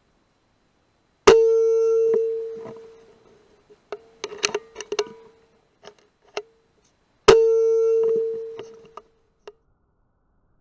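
Two air rifle shots about six seconds apart, each a sharp crack followed by a metallic ring that fades over a second or two. A few small clicks of handling come between them.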